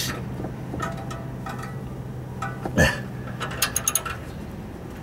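Socket ratchet wrench clicking in short strokes as the exhaust front-pipe flange bolts are tightened, with a louder knock near the middle and a run of quick clicks just after.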